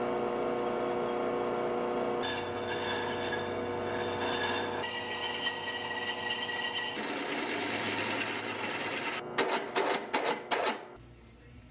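Drill press running with its twist bit cutting into steel pipe and then a steel plate, a steady motor hum with high squealing tones from the bit biting the metal, changing abruptly every few seconds. Near the end comes a quick run of sharp knocks.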